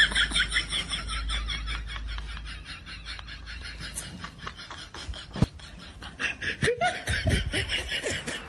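People laughing during play: a quick run of high-pitched laughter in the first two seconds, then quieter laughs and voices with a few sharp knocks.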